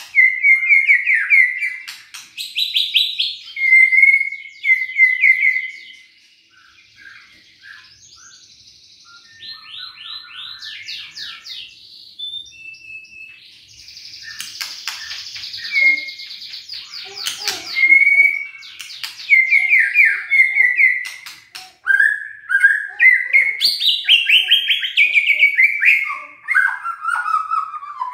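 White-rumped shama singing a long, varied song of clear whistles, fast trills, ticking and rattling notes, and rising and falling glides. It goes softer for several seconds in the middle, then comes back loud with falling whistled phrases near the end.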